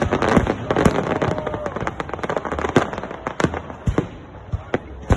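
Fireworks salute: a rapid, irregular series of sharp bangs from shells bursting overhead, with crackling in between. The bangs thin out over the second half.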